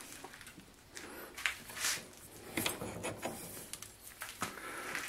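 Several light clicks and knocks of metal tools and parts being handled at a stopped lathe, spaced about a second apart.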